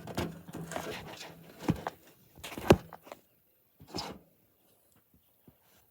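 Handling noises at a shooting bench: rustling and rubbing, then a few sharp knocks and a click, the loudest knock about two and a half seconds in.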